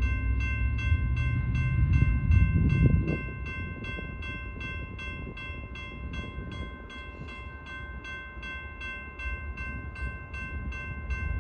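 A train passing on the BNSF line. Its low rumble is loudest about two to three seconds in, then eases off. Under it, a steady ringing tone pulses about three times a second.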